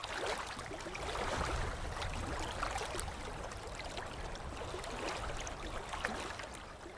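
Water sound effect: splashing and trickling, full of small pops and drips. It starts suddenly and eases off a little near the end.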